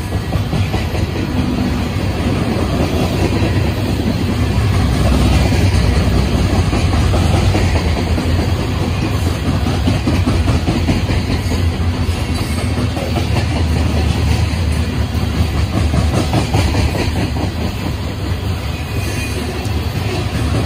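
Open-top coal hopper cars of a CSX freight train rolling past: a steady rumble of steel wheels on rail, with clickety-clack from the wheels crossing rail joints.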